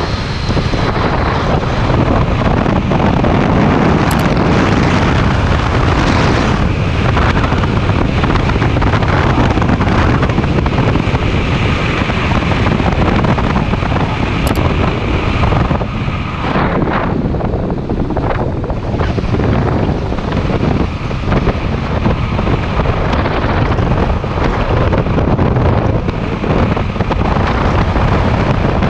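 Wind rushing over the microphone on a moving Kawasaki Z650 motorcycle, with the bike's parallel-twin engine running underneath, steady and loud throughout.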